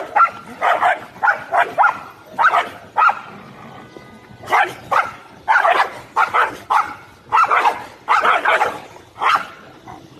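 Dog barking repeatedly in quick runs of short barks, about sixteen in all, with a pause of about a second roughly three seconds in.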